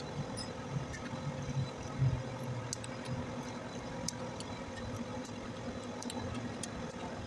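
Steady low machine hum with a few faint, sharp metallic clicks scattered through it, from a torque wrench and socket turning the cylinder-head bolts of a reciprocating refrigeration compressor as they are torqued down.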